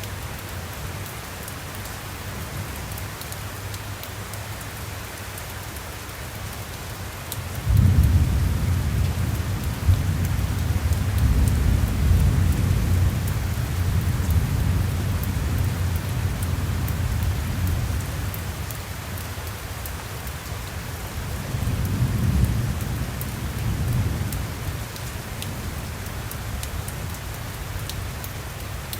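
Steady rain falling, with a roll of thunder that breaks in suddenly about a quarter of the way in and rumbles on for some ten seconds, then a second, weaker rumble near the end.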